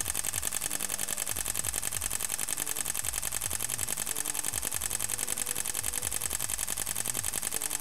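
Panasonic Lumix GH4's shutter firing in a continuous high-speed burst: a rapid, even run of clicks that just keeps going.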